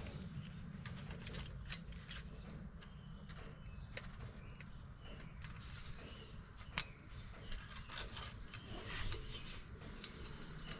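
Faint handling noise of fingers fitting and hand-tightening brass fuel return-line fittings onto diesel pencil injectors: soft rubbing with a few sharp little clicks, the sharpest at about two seconds and about seven seconds in, over a low steady hum.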